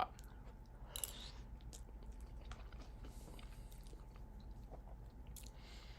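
Quiet chewing of a mouthful of soft cup mac and cheese noodles, with a faint noisy burst about a second in and scattered small mouth clicks.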